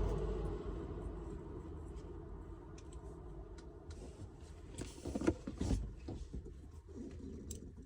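Hands working on shifter parts: scattered light clicks and rustling, with a short cluster of louder knocks about five seconds in.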